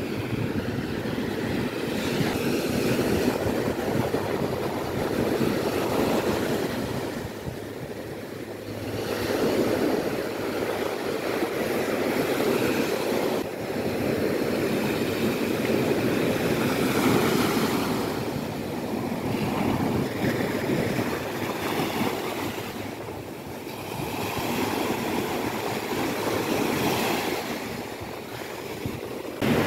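Surf washing up onto a sandy beach, the rush of the waves rising and falling every few seconds.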